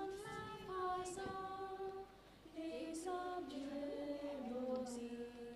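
Women's voices singing unaccompanied, a slow chant-like melody of long held notes that step up and down in pitch.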